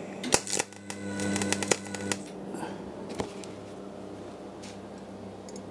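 MIG welder tack welding steel: a few sharp clicks and a short crackling burst of arc about a second in, lasting about a second, over the welder's steady hum. The welder is a Clarke Turbo Weld 150TE.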